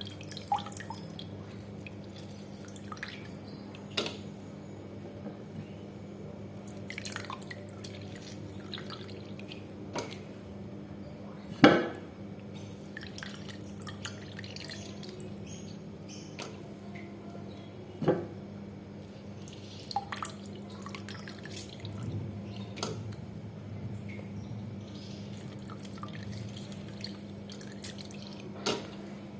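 Liquid dripping, with scattered clinks and knocks of kitchen utensils and glassware, as lime juice is strained into ginger water; the loudest knock comes about twelve seconds in. A steady low hum runs underneath.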